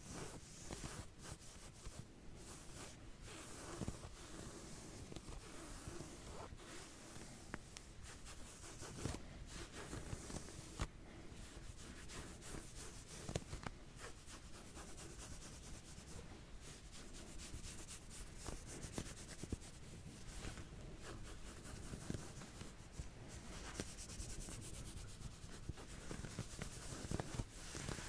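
Back-scratching sounds: continuous soft scratching and rubbing, many short strokes back and forth with small clicks scattered through.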